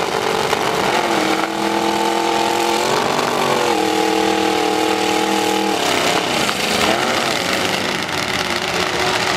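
Demolition-derby pickup truck engines running hard under load. One engine is held at a steady high rev for several seconds, then the revs rise and fall from about six seconds in.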